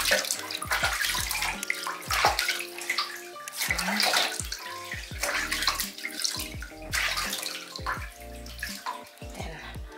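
Bathwater splashing and sloshing in a tub as a hand scoops and rubs water over a wet Yorkshire terrier, with music in the background.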